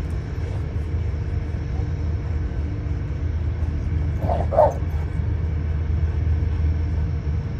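An American bully dog gives a single short bark about halfway through, over a steady low rumble.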